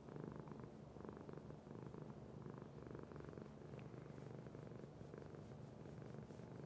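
A domestic cat purring steadily while being stroked, the purr swelling and easing with each breath, about once a second.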